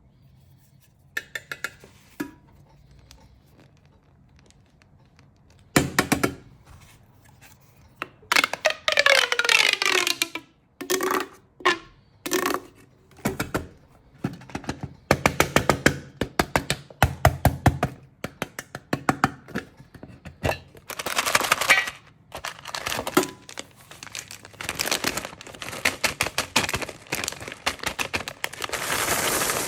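Close-up handling of candy packaging: plastic wrappers crinkling and tearing, mixed with sharp clicks and knocks of candy tins and loose candies, in irregular bursts with short quiet gaps.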